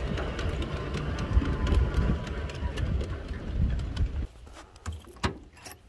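Ridable-scale miniature train rolling along its track: a steady low rumble of steel wheels with sharp clicks over the rail joints. About four seconds in it drops off abruptly, leaving only a few scattered clicks.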